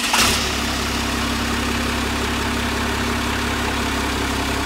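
Dodge Ram 1500 V8 pickup engine just started, settling after a brief flare into a steady idle.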